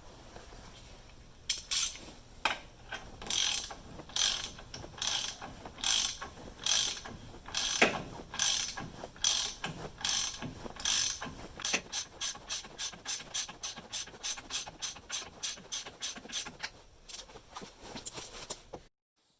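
Hand socket ratchet clicking in repeated strokes as lock nuts are run down onto the steering-arm studs. The strokes come slowly at first, then faster from about twelve seconds in, and cut off abruptly near the end.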